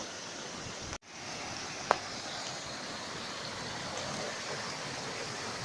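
Shallow rocky stream running steadily over stones, breaking off for an instant about a second in; a single sharp click sounds about two seconds in.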